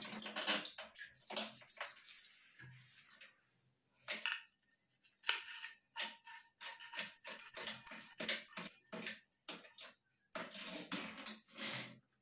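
Irregular clicks and clatter from a metal shower hose and chrome hand-shower head being handled and fitted together, with water sloshing in a bucket in the first couple of seconds.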